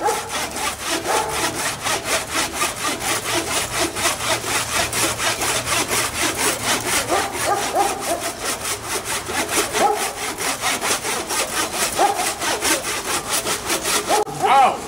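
Hand saw cutting into a standing tree trunk, with fast, even back-and-forth strokes and some squeaks from the blade in the wood; the sawing stops near the end.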